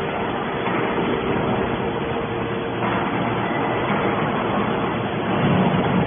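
Industrial machinery running steadily: a dense mechanical noise with a faint steady hum through it, swelling slightly a couple of times.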